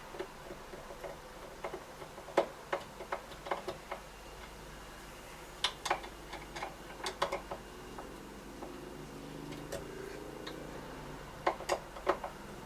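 Small sharp metal clicks and taps from a door lock's parts being handled and fitted together, coming irregularly in short clusters.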